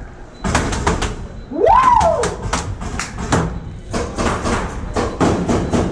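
Paintball markers firing in quick strings of shots, with paintballs knocking against plywood walls. A short rising-then-falling tone cuts through about two seconds in.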